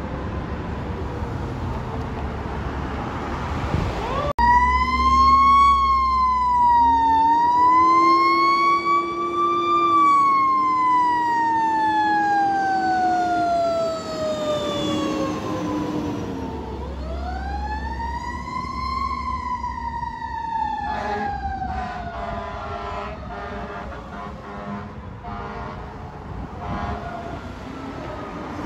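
Fire truck siren wailing in long rising and falling sweeps, the pitch sliding slowly down after each peak, over the trucks' engine noise. It cuts in suddenly about four seconds in and swells up a second time midway.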